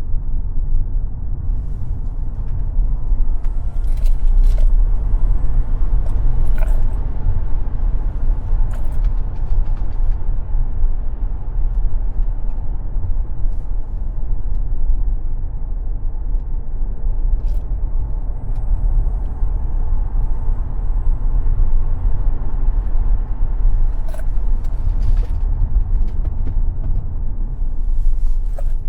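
Tesla Model X electric car driven at speed on a racetrack, heard from inside the cabin: a steady low rumble of tyres, road and drivetrain, with a few short knocks.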